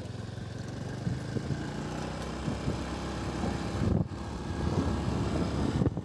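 Motorcycle engine running steadily while riding along a road, with a brief dip in the sound about four seconds in.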